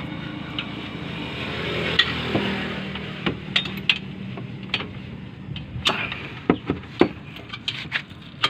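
Metal clicks and knocks of a wrench and fittings being handled around a truck's air brake dryer, scattered through the second half, over a steady low hum. A rushing noise swells about two seconds in.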